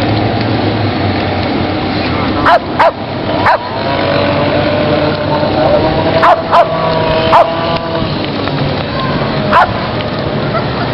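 A dog barking from the lakeshore to another dog swimming out in the water: about seven sharp barks in loose groups, over steady background noise.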